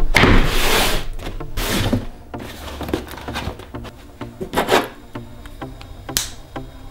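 Several short noisy swishes, the first one loudest, over soft background music. Just after six seconds a Victorinox Swiss Army pocketknife blade is drawn open with a brief scrape.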